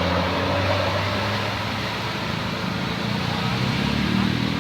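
Engine of a large road vehicle running with a steady low note under road and traffic noise, easing slightly in level.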